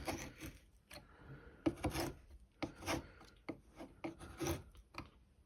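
Knife blade of a Victorinox SwissTool multi-tool cutting into a material with short, uneven scraping strokes, several each second. The cuts are a test of the blade's sharpness.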